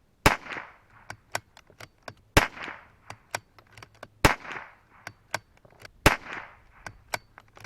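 A CZ 457 bolt-action rifle firing Federal Gold Medal 711B .22 LR standard-velocity rounds: four shots about two seconds apart, each followed by a short echo. Fainter sharp clicks fall between the shots.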